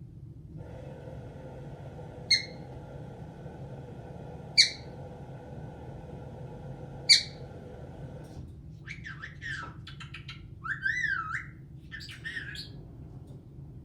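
Caique parrot giving three sharp, loud squawks about two seconds apart, then a quick string of chirps and warbling, wavering whistles. Under the first three calls there is a steady background noise, which stops about eight seconds in.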